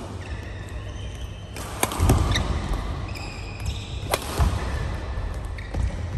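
Badminton rally: several sharp cracks of rackets striking the shuttlecock, with short high squeaks of court shoes on the mat and thuds of players' feet landing.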